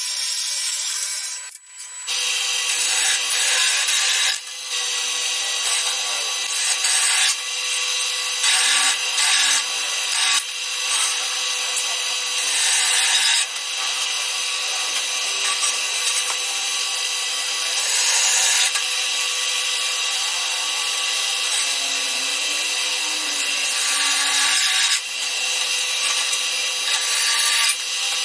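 Power tool working on steel, a steady harsh rasping noise with a faint steady hum, in short stretches of slightly different loudness and with a brief break about a second and a half in.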